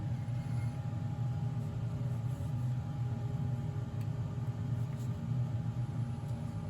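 Wood lathe running steadily with a low hum and a faint, steady higher whine.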